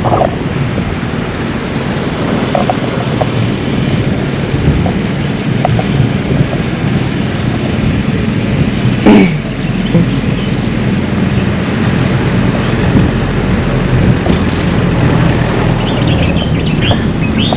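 Road traffic: cars and motorbikes passing along a street in a steady rumble, with wind on the microphone. There is one sharp loud knock about nine seconds in.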